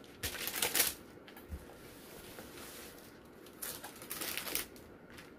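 Rustling and crackling of a rolled diamond-painting canvas being handled and unrolled, its sticky adhesive surface and cover film crinkling in two short bursts: one right at the start and another about three and a half seconds in.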